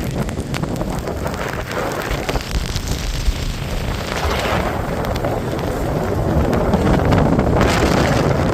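Strong gusting wind buffeting the microphone, loud and continuous, with stronger gusts about four seconds in and near the end.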